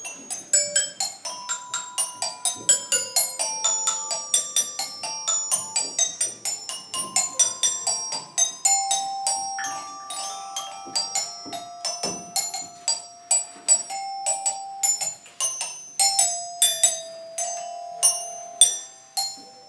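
Background music: a quick melody of short, bright, ringing struck notes on tuned mallet percussion, with some longer held notes.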